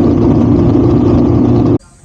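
Motorcycle engine running loudly and steadily, cut off suddenly near the end.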